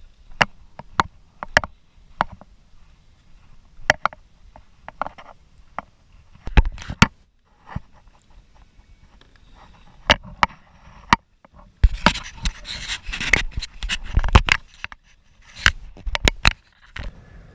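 Sharp, separate knocks and clicks of a kayak and its gear being handled, with a couple of seconds of dense clattering and rustling about twelve seconds in.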